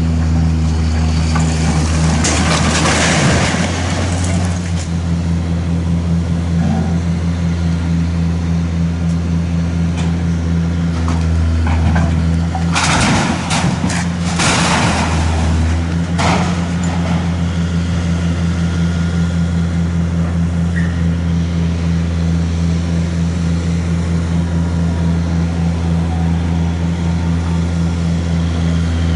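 Long-reach demolition excavator's diesel engine running steadily, with crashes of masonry and debris falling as the building wall is pulled down: once about two seconds in, and again in a longer run of crashes around the middle.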